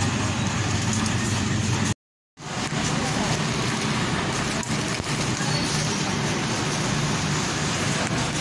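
Grocery store ambience: a steady hum with indistinct voices in the background. It cuts out to silence for a moment about two seconds in, then resumes.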